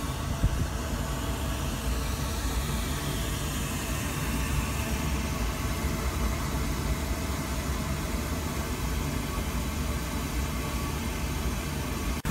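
KVH800 waste-oil heater running: its oil burner and blower give a steady low rumble with a hiss of air.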